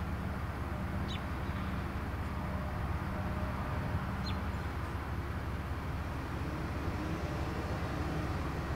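Diesel freight locomotive engine running steadily during switching work, a low even hum with a constant pitch. Two short high bird chirps sound over it, about a second in and about four seconds in.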